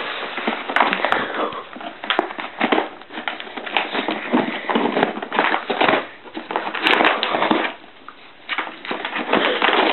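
Scottish terrier tearing and nosing at a paperboard box to get a treat: irregular crackling, rustling and scraping of cardboard and plastic, with a couple of short pauses.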